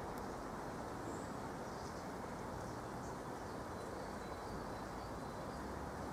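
Steady outdoor background noise with a few faint, high small-bird chirps scattered through it.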